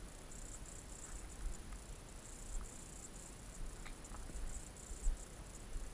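Crickets chirping, a high-pitched trilling that comes and goes in pulses, over a low rumble with a few faint clicks.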